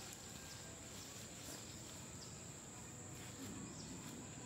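Faint, steady high-pitched insect drone over low outdoor background noise.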